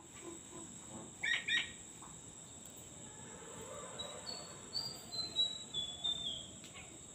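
Oriental magpie-robin calling: two loud notes about a second in, then a run of clear whistled notes stepping down in pitch. A steady high insect trill runs underneath.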